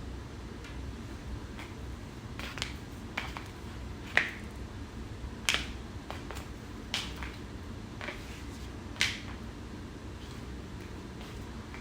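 Jelly flip-flop slapping and snapping against a bare foot as it dangles: a run of about seven sharp slaps at uneven intervals, roughly a second apart, over a steady low hum.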